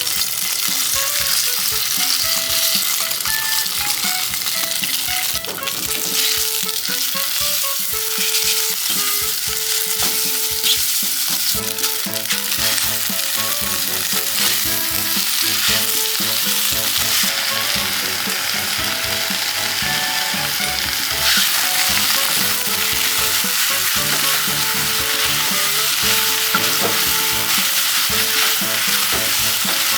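Food sizzling and crackling in a hot frying pan as it is stirred and tossed, with soft background music under it.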